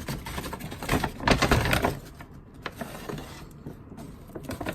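A shopping bag being handled as slime is bagged for the bin: a dense rustling crackle for about the first two seconds, then scattered small clicks and crinkles.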